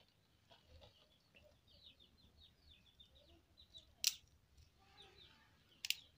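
Two sharp cracks about two seconds apart, from dry palm-leaf stalks snapped by hand, over the quick chirping of small birds in the background.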